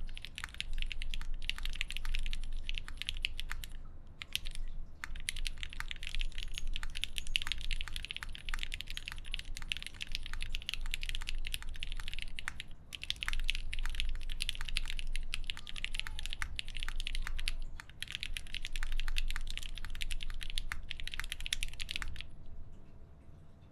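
Fast continuous typing on an ai03 Vega mechanical keyboard with lubed Gateron X linear switches on an aluminium plate and GMK keycaps, a muted, quiet clack over a thick rubber desk mat. It pauses briefly a few times and stops about 22 seconds in.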